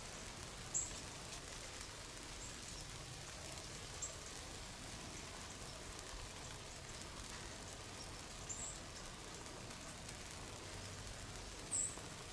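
Quiet outdoor ambience: a faint steady hiss with a handful of brief, high-pitched ticks. The loudest tick comes near the end.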